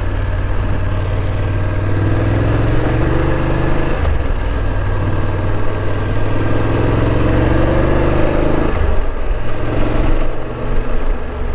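BMW F850 GS parallel-twin motorcycle engine under way, its pitch rising twice as the bike accelerates, with a drop about nine seconds in; it eases off near the end.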